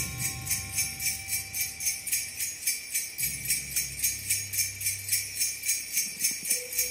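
Christmas music led by sleigh bells jingling in a steady beat, about three to four shakes a second, with a low bass line coming in about three seconds in.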